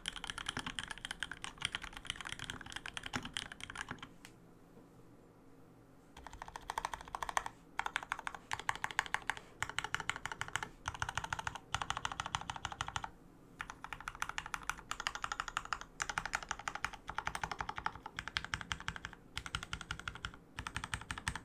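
Typing on a custom 65% mechanical keyboard with a white acrylic case, lubed vintage Cherry MX Black linear switches and PBT keycaps: fast runs of keystrokes in bursts, with a pause of about two seconds some four seconds in and short breaks between the later runs.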